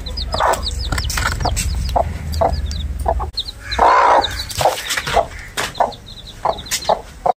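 Desi hen clucking repeatedly while her chicks peep in quick, high, falling cheeps. About four seconds in there is one louder, harsh burst.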